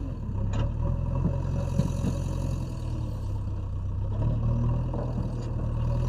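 JCB 3DX backhoe loader's diesel engine running steadily with a low, even hum, with a faint knock about half a second in and another near the end.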